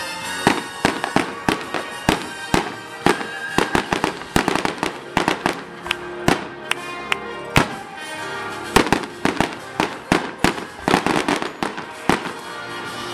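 Fireworks show: aerial shells bursting in rapid, irregular bangs, several a second, with music playing underneath.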